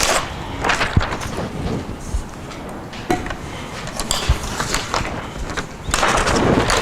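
Manual typewriter keys clacking in irregular strikes, with a denser stretch of clatter near the end.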